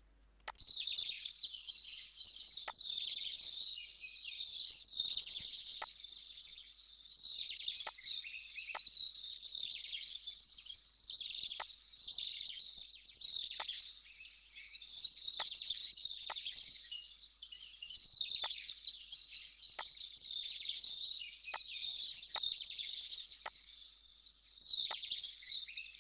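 Background chirping of birds, a dense high fluttering chorus that keeps on throughout, with single sharp clicks every second or two.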